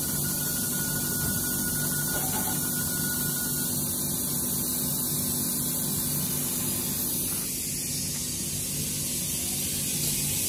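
Renfe Civia class 463 electric multiple unit with Trainelec traction equipment pulling out: a steady electric hum with a high hiss, and a thin whine that drops out about four seconds in.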